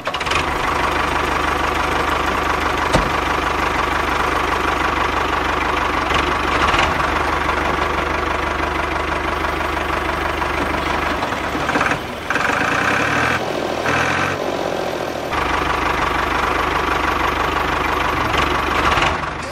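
A steady engine-like running sound, like a small tractor engine idling, as the miniature DIY tractor drives with its water-tank trolley. The sound changes briefly about two-thirds of the way through, then settles again.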